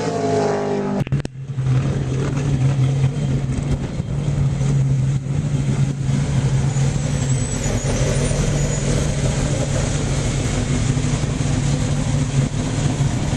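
The tail of a stock car going by on track, then, from about a second in, the ARCA stock car's V8 engine idling steadily in the pits with an even, low drone.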